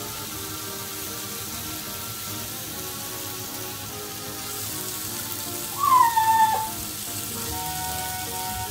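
Meat sizzling on a tabletop grill under background music. About six seconds in, a dog gives one loud whine of under a second that slides down in pitch.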